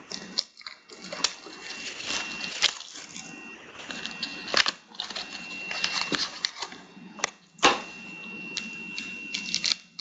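Foil trading-card packs crinkling and rustling as they are handled, with irregular sharp crackles, the loudest twice in the second half.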